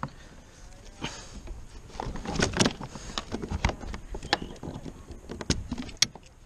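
Irregular knocks and clicks of gear and the landing net's handle against the plastic hull of a fishing kayak, busiest in the middle.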